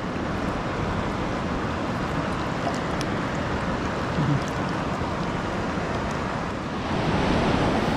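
Steady rush of fast-flowing river water, growing a little louder near the end.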